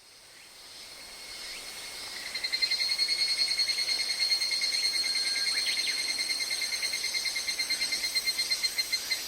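Nature field recording of calling insects: a rapid, steady pulsed chirping, high-pitched, fading in over the first couple of seconds, over faint outdoor hiss.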